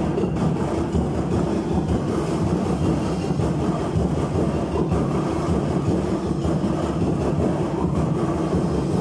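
Loud live drumming from a large festival percussion ensemble, playing fast and dense with no pause. The low drums are strongest.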